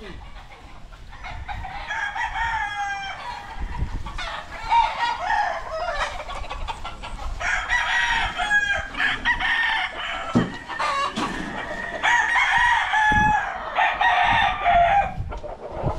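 Many gamecocks crowing, their crows overlapping and following one after another without a break.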